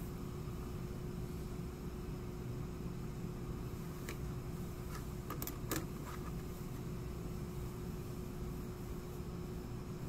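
Steady droning room hum with a faint constant tone. About four to six seconds in there are a few light clicks and taps as the mini PC's metal drive cage is handled.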